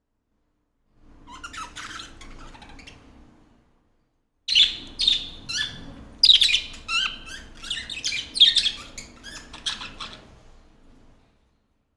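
A flock of caged budgerigars chirping and chattering: soft chirps about a second in, then after a short break a louder run of rapid, overlapping chirps that fades out near the end.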